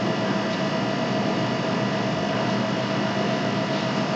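Steady background buzz in the room: an even hiss with a few steady hum tones running through it.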